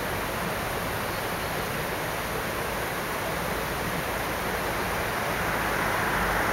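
Steady hiss of road traffic, with a vehicle drawing nearer and getting louder near the end.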